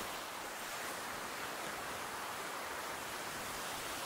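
Steady, even hiss of ocean surf washing on a beach, fairly faint and with no single wave standing out.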